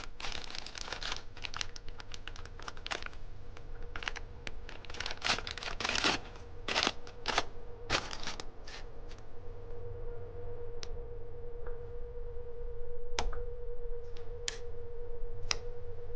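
Thin plastic bag crinkling and rustling as the replacement extruder motor cover is unwrapped, for about the first nine seconds. After that, a few sharp plastic clicks as the cover is handled and fitted at the printer's toolhead, over a steady hum.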